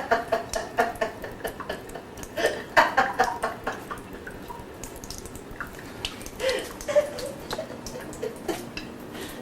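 Water trickling and dripping from a tap, with small irregular splashes and drips.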